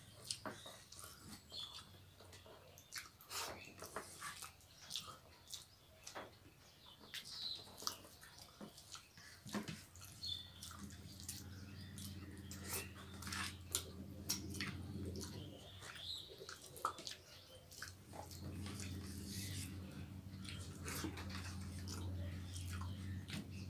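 Quiet eating sounds: chewing and lip-smacking while eating rice by hand, with scattered small clicks. A steady low hum comes in about ten seconds in.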